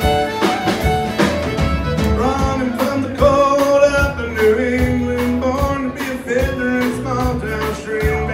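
Live country band playing with acoustic and electric guitars, fiddle and a steady drumbeat; a fiddle line gives way to a man singing lead from about two seconds in.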